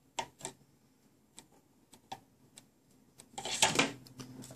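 Small plastic clicks and taps as toy puppy figures and a plastic playset are handled, a few separate clicks about a second or less apart, then a louder clattering rustle near the end.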